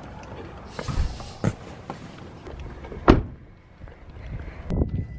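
A few separate knocks and thuds with a brief rustle about a second in, the loudest a single sharp thud about three seconds in: a door shutting, with footsteps.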